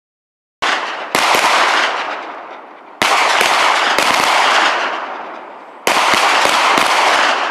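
M17 9 mm pistols fired on an outdoor range: several sharp shots in three groups about two and a half seconds apart, starting about half a second in, each group trailing off in a long echo.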